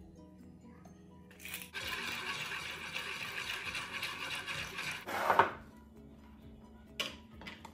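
Wire balloon whisk beating eggs in a mixing bowl with rapid scraping strokes for about three and a half seconds, ending with a splash as milk is poured in from a jug. A couple of light knocks follow near the end, over faint background music.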